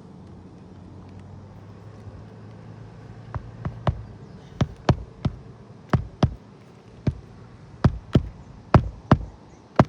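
Hammer driving roofing nails through asphalt shingles: sharp strikes, mostly in twos and threes, beginning about three seconds in. A low steady hum sits underneath before the hammering starts.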